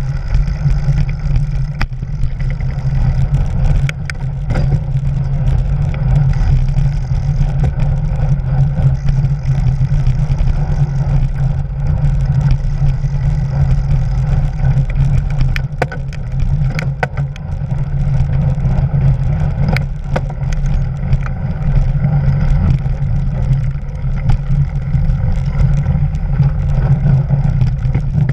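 Fat-tire mountain bike rolling over packed snow and frozen dirt: a steady low rumble from the tyres and frame, with a few sharp knocks and rattles from bumps in the trail.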